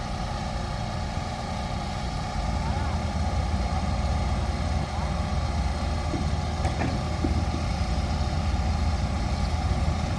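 Excavator's diesel engine running steadily, growing louder about two seconds in as the machine works.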